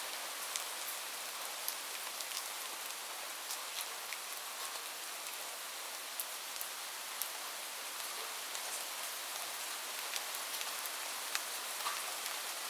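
Light, calm rain falling steadily: an even hiss with scattered sharp drop ticks.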